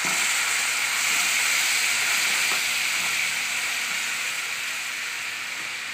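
A ladleful of liquid poured into a hot steel pan of fried spice masala, hissing and sizzling loudly as it turns to steam. The hiss starts at once and slowly dies down.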